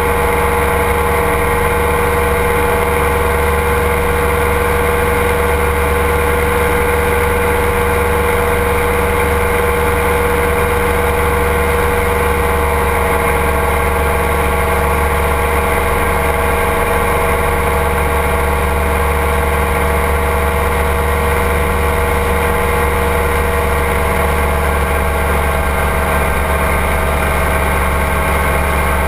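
Ultralight trike's engine and propeller running steadily in cruise flight, a constant drone with a steady tone that drifts very slightly lower over time, heard from a camera on the wing frame along with the rush of the airflow.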